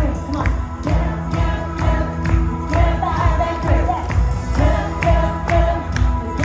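Worship band playing a praise song with a steady drum beat and bass, voices singing over it.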